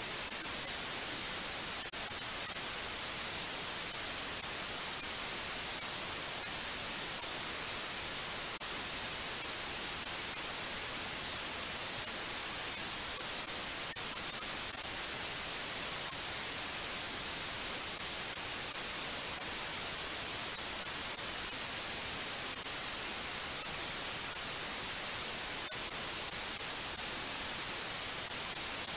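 Steady white noise: an even, unchanging hiss, brightest in the high treble.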